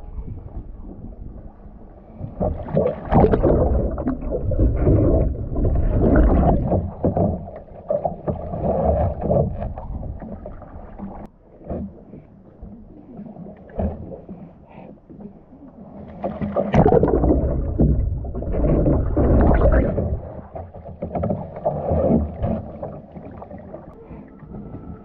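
Water splashing and churning around a kayak and its paddle as the paddler works through reverse sweep rolls, in two long spells: the first from about two seconds in, the second from about sixteen seconds.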